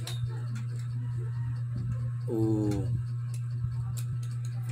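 Small clicks and knocks of plastic parts as a ring light is twisted onto its stand mount, over a steady low hum. About halfway there is one short, slightly falling voice-like sound.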